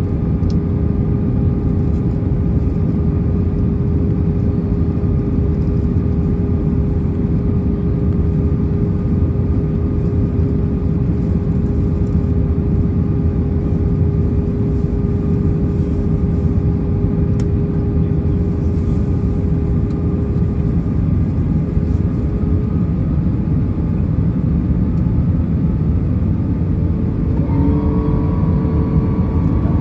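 Airbus A319 passenger cabin noise in descent: a steady low rush of airflow and engine noise, with a steady hum that fades out about two-thirds of the way through. A new whine comes in near the end.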